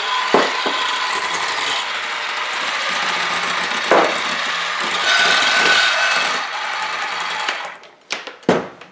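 Electric hand mixer running steadily, its beaters whirring through softened butter and sugar in a stainless steel bowl as they cream it. It stops about seven and a half seconds in, followed by two short knocks.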